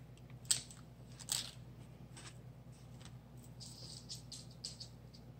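Small plastic sequins handled in the palm and between the fingers: faint light clicks and rustles, with a couple of sharper taps in the first second and a half and a quick patter of tiny clicks around four seconds in.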